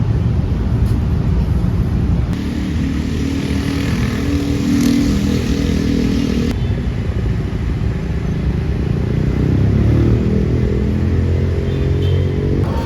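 A motor vehicle's engine running with a loud low rumble, its pitch shifting up and down.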